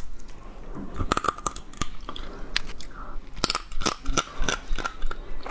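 Close-miked eating of crab: chewing, with sharp cracking clicks as crab shell and leg are bitten, coming thickest from about a second in.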